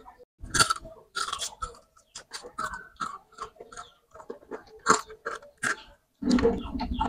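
Close-miked biting and chewing of crispy battered fried corn fritters, then a fried chicken foot near the end: a quick run of sharp crunches.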